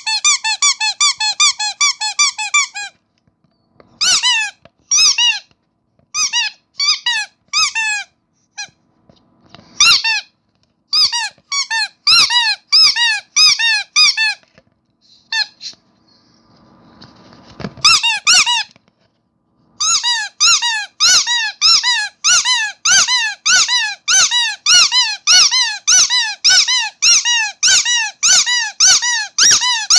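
Starfish-shaped rubber squeaky dog toy squeezed again and again, each squeeze a short high squeak. Squeezed rapidly at first, then in uneven clusters with pauses, and for the last ten seconds at a steady two to three squeaks a second.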